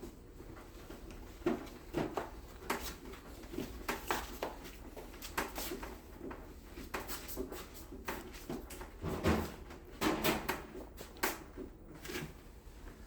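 Irregular clicks, taps and knocks of hand work with tools and metal parts, coming a few times a second and busiest about two-thirds of the way through.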